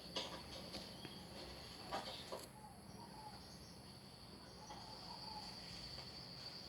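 Faint, steady high-pitched insect chirring, with a few soft clicks.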